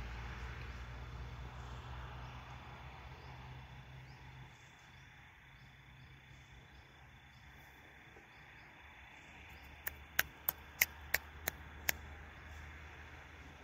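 Quiet forest ambience with an insect giving a faint, steady high-pitched buzz, while a vehicle engine's low rumble fades out over the first few seconds. Near the end comes a quick run of about seven sharp clicks over two seconds.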